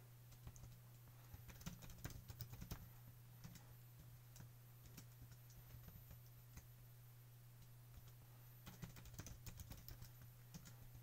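Faint typing on a computer keyboard, in a cluster of keystrokes about a second and a half in and another near the end, with scattered single clicks between, over a low steady hum.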